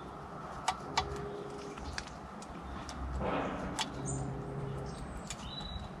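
Great spotted woodpecker pecking at suet balls in a wire feeder: a handful of sharp, irregular taps, with a brief rustle near the middle. Faint chirps from other birds and a steady low hum sit in the background.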